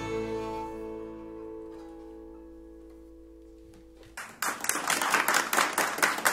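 The final chord of an acoustic guitar, fiddle and resonator guitar rings out and slowly fades. About four seconds in, a small group starts clapping.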